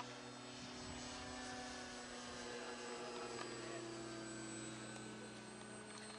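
Electric RC model airplane's motor and propeller whining steadily in flight, its pitch drifting slowly as the plane flies past.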